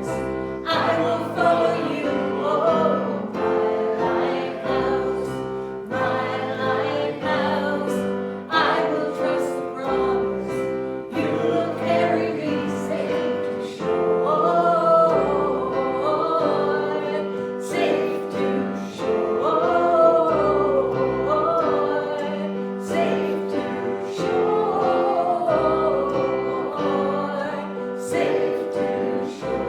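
A group of voices singing a gospel hymn over instrumental accompaniment that holds steady notes.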